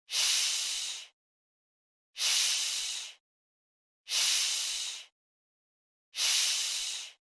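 A voice holding the English 'sh' sound (/ʃ/) as a long hiss, four times, each about a second long and about two seconds apart, as a pronunciation drill.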